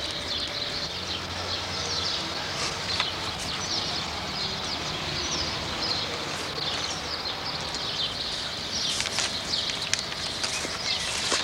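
Outdoor ambience: a steady background hiss with scattered bird chirps.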